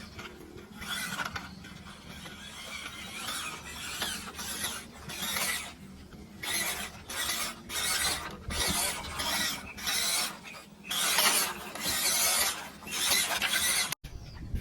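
WPL C24 1/16-scale RC Toyota Hilux's electric motor and gearbox whirring in repeated short bursts as the throttle is blipped on and off, about a dozen times, with a few longer pulls near the end.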